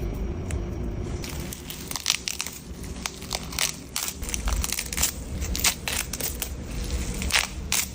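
A dog chewing and crunching food, with an irregular run of sharp crunches that starts about a second in.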